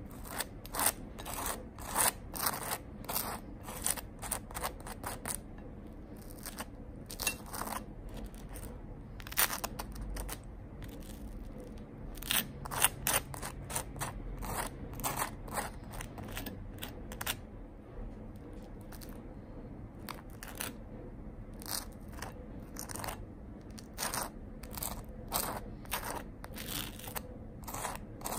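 Table knife scraping butter across a slice of dry, crisp toast: runs of quick, scratchy strokes with short pauses between them.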